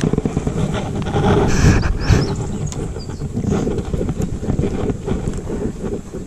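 Wind buffeting the camera's microphone: a low, uneven rumble, with scattered knocks and rustles of handling.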